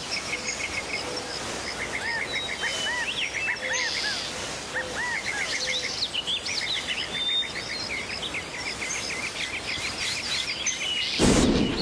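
Several birds singing: rapid series of short repeated chirps and arching whistled notes over a steady outdoor hiss. Near the end a sudden loud burst of noise cuts in.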